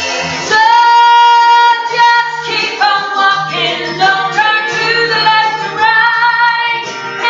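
A woman singing a song over instrumental accompaniment, holding one long note from about half a second in to nearly two seconds before singing on.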